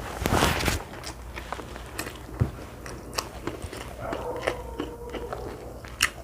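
Close-up eating sounds of someone biting and chewing food, with a louder noisy burst at the start and scattered small clicks. A brief steady tone comes in about four seconds in.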